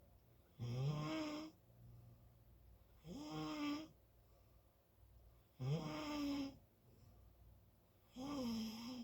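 Snoring: four snores roughly two and a half seconds apart, each lasting under a second and carrying a clear pitch that rises and then holds, with a faint low hum in the pauses.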